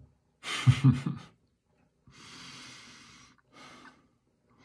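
A man makes a short voiced sound in two quick pulses, then breathes out at length near the microphone, with a shorter breath after it.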